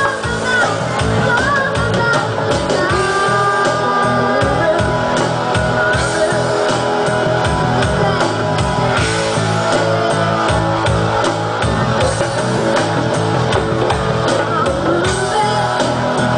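Live band playing a pop song, with a girl and a woman singing together into microphones over drums, guitar and keyboard.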